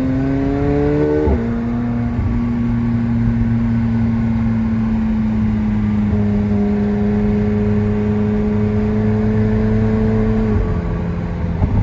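McLaren 720S's twin-turbo V8 heard from inside the cabin: revs climb, then drop suddenly about a second in as the automatic gearbox shifts up. It then settles to a steady hum, with another drop in revs near the end.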